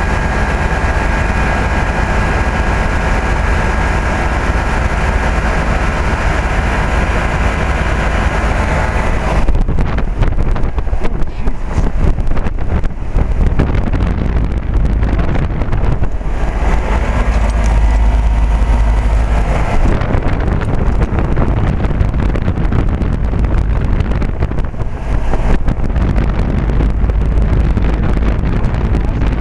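Carrier heat pump outdoor unit running in cooling mode, its compressor and condenser fan making a steady hum with several fixed tones. From about ten seconds in, wind buffets the microphone and gusts partly cover the hum.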